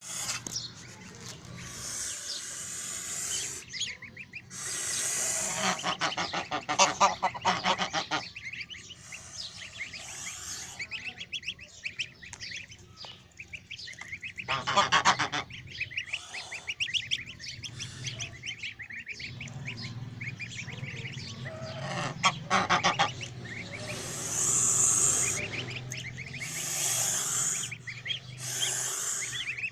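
Young geese (goslings) calling, a dense run of quick, high, repeated calls, with several bursts of a hissing noise mixed in.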